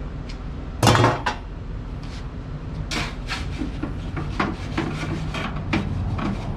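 Pizza peel knocking and scraping against the charcoal pizza oven's mouth and stone as the pizza is lifted out. One loud knock comes about a second in, followed by a run of lighter clinks and scrapes.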